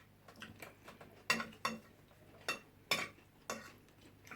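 Cutlery clinking against plates during a meal of rice and fish: about six separate sharp clinks spread out over a few seconds.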